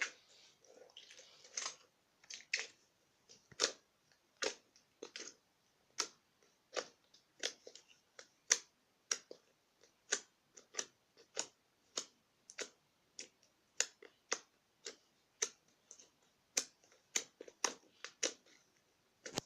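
Honey slime being pressed and squished by hand, giving a run of sharp little clicks and pops, nearly two a second, with a softer crackle between some of them.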